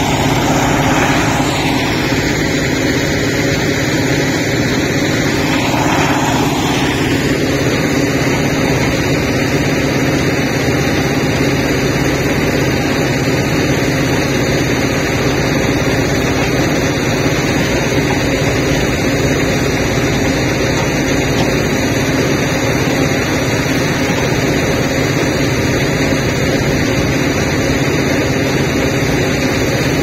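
Steady heavy-machinery drone from a JCB 3DX backhoe loader's diesel engine working, together with a stone-screening plant's conveyor running. An extra higher-pitched layer sounds over the drone for the first several seconds and drops away about seven seconds in.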